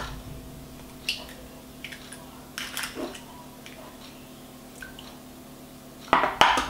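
Whole eggs cracked on the rim of a stainless-steel stand-mixer bowl and emptied in: sharp taps and shell cracks every second or two, with two loud knocks near the end.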